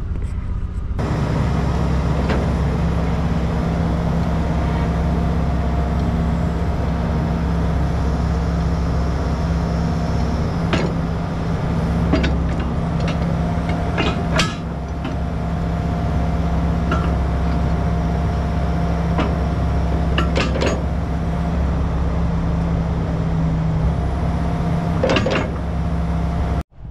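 Hitachi Zaxis 280 excavator's diesel engine running steadily while the arm works a hanging rotating grab. Several sharp metal clanks come through, the loudest about halfway, as the grab and hitch knock about.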